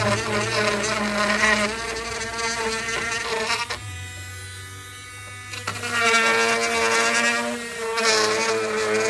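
Cordless Ryobi lithium-ion rotary tool whining at high speed as its bit grinds a cutout into a plastic door handle. It eases off and runs quieter for a couple of seconds in the middle, then comes back up to full speed.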